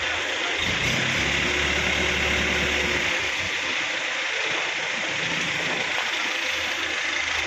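An engine running steadily, probably at idle, under a constant hiss.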